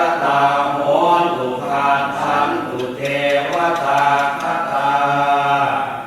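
Buddhist monks chanting Pali verses in unison: steady, drawn-out male voices in the Thai chanting style.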